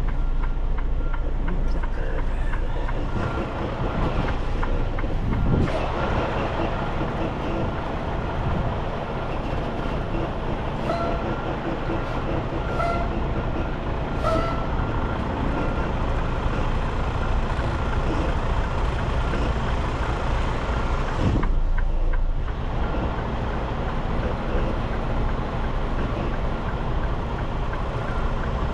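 Semi truck's diesel engine running steadily at low speed while the truck manoeuvres. Two brief sharp sounds break in, about six seconds in and again about twenty-one seconds in.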